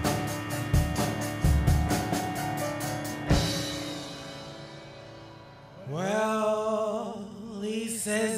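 Background music: a song with drums ends on a held chord that fades out, and about six seconds in another song begins with a singing voice.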